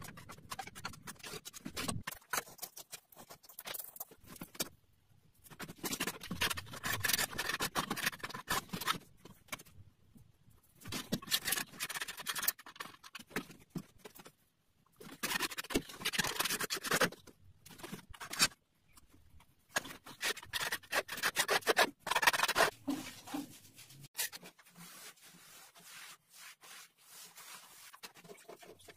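A hand tool scraping excess white tile mortar off the joint between a mosaic ceiling and the wall tiles, in repeated strokes a few seconds long with short pauses. Near the end this gives way to softer rubbing as a rubber grout float is worked over the mosaic.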